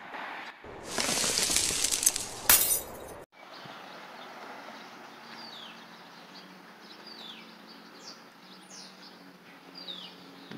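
Glass-shattering sound effect: a crash of breaking glass lasting about two seconds, ending in a sharp crack. It cuts off suddenly, and then birds chirp outdoors with short falling calls over a faint steady low hum.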